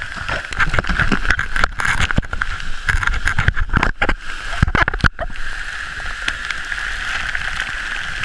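Flash-flood water and waterfall spray rushing loudly around the camera, with irregular knocks and thuds close to the microphone for the first five seconds or so, then a steady rush.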